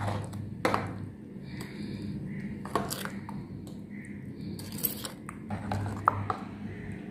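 A white spoon stirring a thick cream, mayonnaise and powdered-sugar mixture in a glass bowl, scraping and knocking against the glass with sharp clinks at irregular moments.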